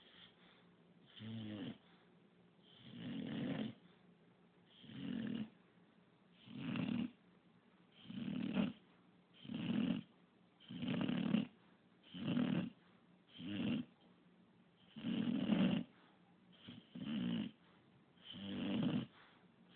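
English bulldog snoring steadily in its sleep, about a dozen snores, one every second and a half or so, each breath a separate loud snore with quiet between.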